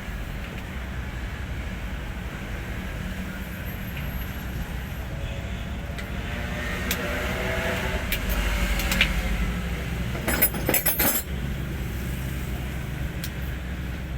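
Hino 500 truck's diesel engine running steadily with a low rumble. The sound swells in the middle, and a brief burst of metallic clinking comes about ten seconds in.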